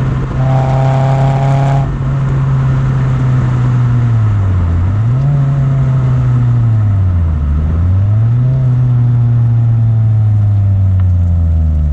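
Toyota Yaris engine through a TRD header and Fujitsubo exhaust backbox, running under load at a fairly steady speed. The engine note drops and climbs back up twice, about five and seven seconds in, and falls again near the end. A brief higher tone rides over it in the first two seconds.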